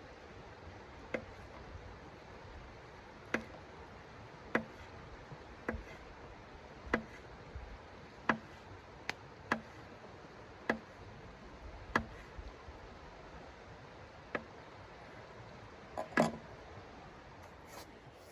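A series of about a dozen sharp knocks or ticks, roughly one a second, over a steady hiss; the loudest comes near the end.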